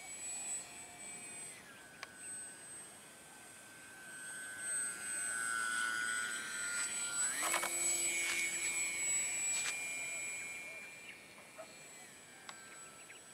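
Whine of an electric RC glider's 2212 2200kv brushless motor and 6x4.5 propeller in flight, with a thin steady high whine alongside. The pitch falls as the throttle is eased about a second and a half in, climbs back under power about seven seconds in, and falls again near the end. It is loudest in the middle stretch.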